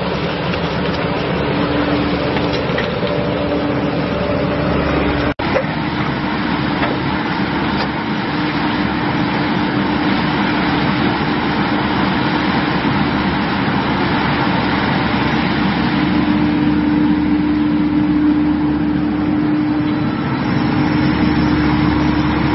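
XCMG walking excavator's diesel engine running steadily with a constant hum while the machine digs. The sound drops out for an instant about five seconds in.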